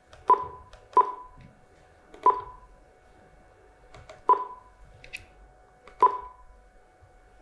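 Key-press beeps from a Furuno LH-5000 loud hailer's control unit: five short beeps at the same pitch, irregularly spaced, one for each press of its menu keys.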